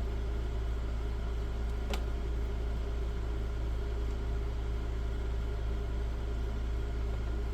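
Steady low background hum, with a single click about two seconds in.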